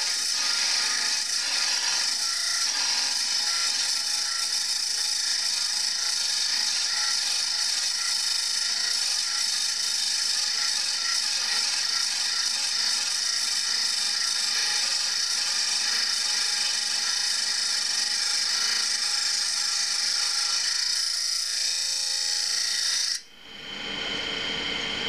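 Diamond cutoff wheel on a Cuttermaster Journeyman tool grinder dry-grinding through a 3/8-inch carbide end mill turning in an air spindle: a steady, high-pitched grinding hiss. About 23 seconds in, the grinding stops suddenly as the cut comes through, leaving the quieter sound of the machine running.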